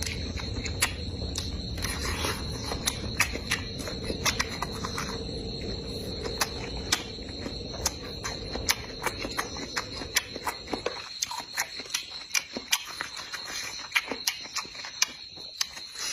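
Eating sounds: a person chewing crunchy food, with many short, irregular crunches and mouth clicks. A steady high insect trill, typical of crickets, runs under it, and a low background rumble stops about eleven seconds in.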